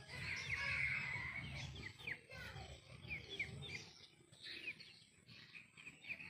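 Small birds chirping: a string of short, quick chirps, most of them in the first half.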